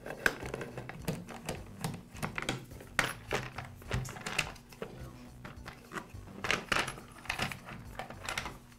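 Plastic top cover of a Poulan P3314 chainsaw being unscrewed and lifted off: a screwdriver turning out the cover screw near the start, then irregular light clicks, taps and scrapes of hard plastic as the cover is worked loose.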